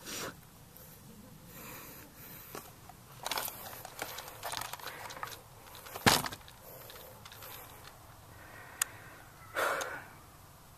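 Dry grass and gear rustling and crackling as someone moves and crouches in it, with scattered sharp clicks and one loud crack about six seconds in.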